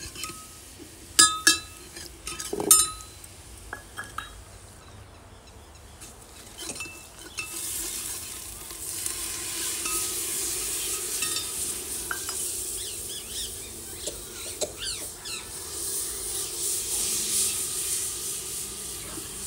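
Potatoes and carrots frying in oil in a pot. A spoon knocks and clinks against the pot a few times in the first three seconds, then a steady sizzle builds from about eight seconds in.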